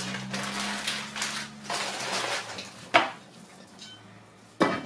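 A plastic bag rustling as chopped cassava leaves are shaken out of it into a pot, then a sharp clank of a pot lid about three seconds in and another knock near the end.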